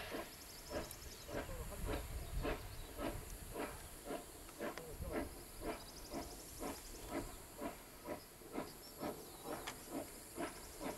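JS-class 2-8-2 steam locomotive working hard with a train, its exhaust chuffing in a steady beat of about two chuffs a second.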